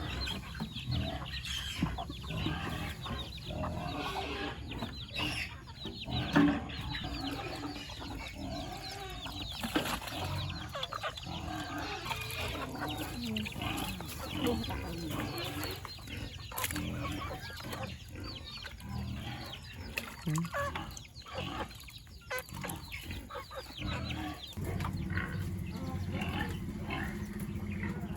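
Chickens clucking, many birds calling at once in a steady stream of short calls.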